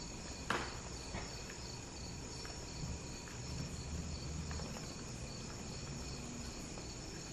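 Faint, steady chirring of crickets, with one sharp click about half a second in and a few softer ticks after it.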